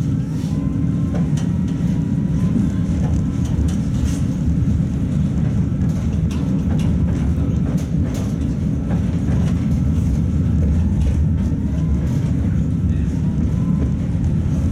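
Modernised Tatra T3 tram running along the track, heard from inside the car: a steady low rumble of wheels on rails with scattered clicks and rattles, and a faint steady whine.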